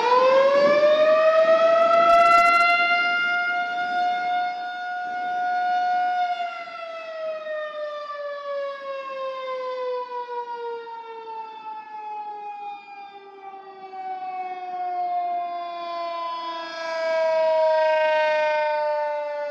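Federal Signal 2001-130 electromechanical rotating siren winding up fast to a steady tone. After about six seconds it slowly winds down in pitch. Its loudness swells and fades as the single horn turns toward and away.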